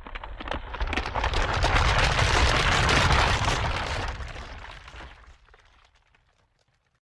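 Earthquake sound effect: a deep rumble with dense crackling and cracking of breaking ground and structures. It starts suddenly, builds to its loudest about three seconds in, then fades out over the last few seconds.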